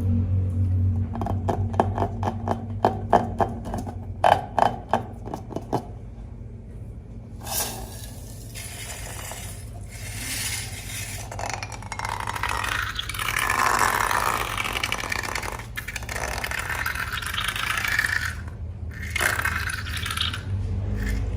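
Handling of slime-making materials: a run of small hard clicks and clinks, then from about seven seconds in, a long stretch of scraping and crinkling.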